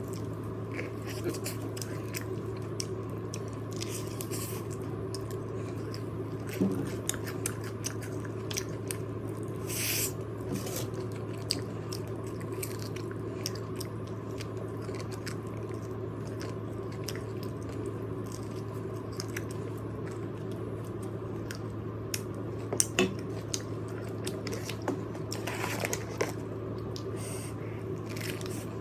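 Close-miked biting and chewing of crispy fried chicken: irregular crunches and crackles of the breaded crust, with a few louder bites, over a steady low hum.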